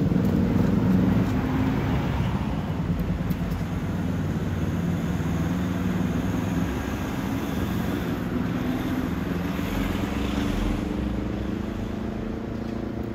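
Engines of vehicles in a slow road convoy moving along a city street, a low steady hum. It is loudest at first and fades slowly.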